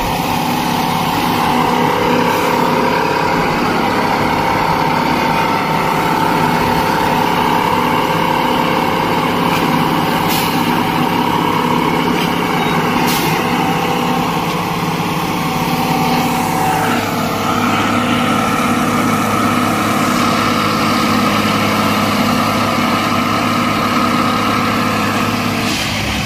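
Railway track tamping machine (sleeper packing machine) running: a loud, steady engine and hydraulic drone with a whining tone, its pitch stepping up about two-thirds of the way through. Two short high hisses come near the middle.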